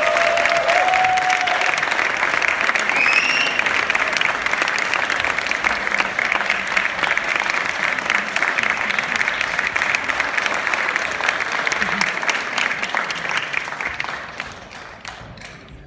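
Audience applauding, with a voice or two calling out in the first few seconds; the applause dies away near the end.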